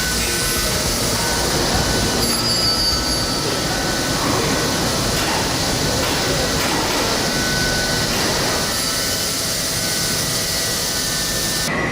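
Doosan DVF 6500 5-axis CNC machining center cutting metal: a steady mechanical rushing noise, with short high-pitched tones from the spindle and cutting tool coming and going.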